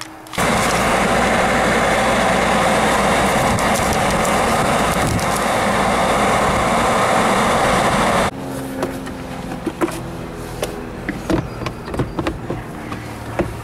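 Newly fitted heater blower fan of a Seat Ibiza 6J running as a test: a loud, steady rush of air from the dashboard vents that starts about half a second in and cuts off suddenly after about eight seconds. Then light plastic clicks and knocks as the lower dashboard trim panel is handled.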